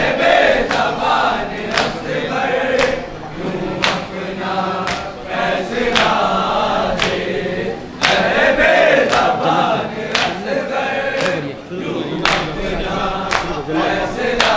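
A group of men chanting an Urdu noha in chorus over a microphone, with sharp chest-beating strikes (matam) about once a second keeping the beat.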